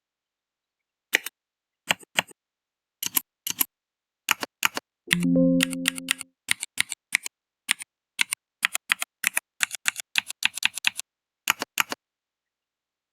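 Mechanical-keyboard keystroke clicks played by the Mechvibes app as a laptop keyboard is typed on. The keystrokes come irregularly and grow quicker and denser from about eight seconds in. A short low chord-like tone sounds about five seconds in.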